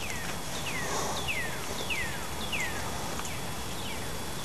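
A bird singing a series of about seven clear whistled notes, each sliding down in pitch, a little under two a second, the last few fading.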